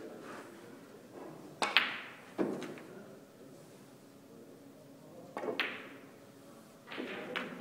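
Snooker balls struck with a cue: twice, a sharp click of the cue tip on the cue ball is followed at once by the click of the cue ball hitting an object ball, about 1.7 s and 5.5 s in. There is a duller knock about half a second after the first pair, and a few more clicks near the end.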